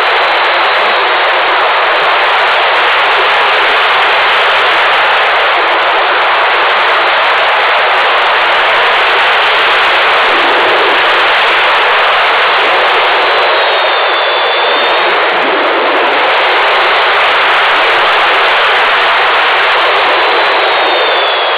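Loud, steady rush of airflow over the microphone of a small camera mounted on an Ellipse 2V radio-controlled glider in flight.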